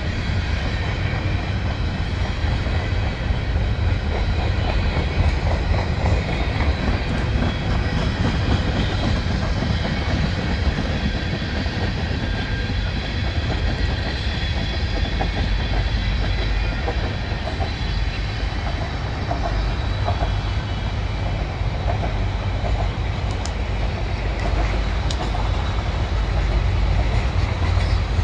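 Freight cars of a Union Pacific manifest train rolling steadily past, a continuous rumble of steel wheels on the rails.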